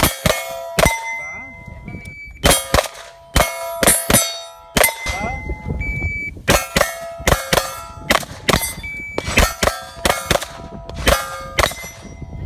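Strings of rapid gunshots from a carbine, each shot followed by the ringing clang of a struck steel target plate. A short high electronic shot-timer beep starts each string: one about two seconds in, then about six and nine seconds in, with five or six shots following each beep.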